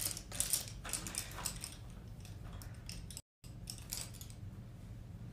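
Light scratchy rustles and small clicks from handling a makeup brush while powder is applied, in clusters in the first second and a half and again around four seconds, over a low steady hum. The sound cuts out completely for a moment a little after three seconds.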